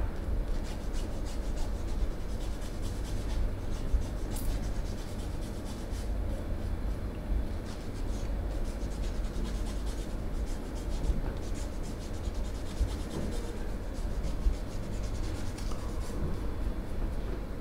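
Hands rubbing and kneading skin during a massage: a continuous close-up friction sound with small ticks, over a steady low rumble.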